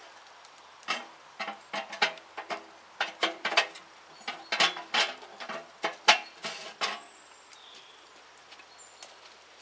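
Metal camp cookware clinking and knocking as it is handled: a quick, irregular run of sharp clanks, some briefly ringing, for about six seconds, then they stop.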